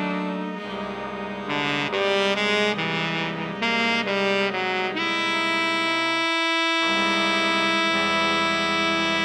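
Jazz orchestra horns, saxophones and brass, playing an instrumental passage: a run of short, punchy chords, then a long held chord from about halfway through.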